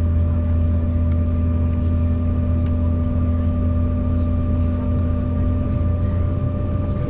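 Steady cabin drone inside an Embraer E190 airliner: a deep, even rumble with a few unchanging whining tones from its turbofan engines and cabin air systems.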